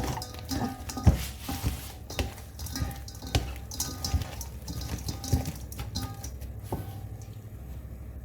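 Kitchen prep: irregular clatter and knocks of dishes and utensils, with running water, dying down about seven seconds in over a steady low hum.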